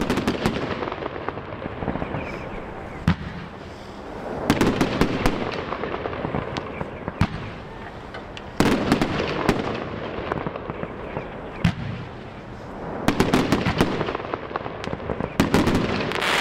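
Gaoo Wave Sensation 30 mm brocade fan cake firing its 49 shots. Quick volleys of launch thumps and bursting stars come in waves about every four seconds, with a rushing hiss between them.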